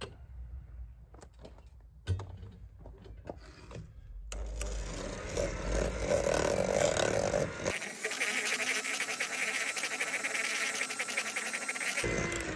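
Old electric hand mixer whisking egg yolks and sugar in a plastic bowl. After a few handling clicks it starts about four seconds in and runs steadily. Its tone changes near the eighth second, and from there a fast, even ticking runs under the motor.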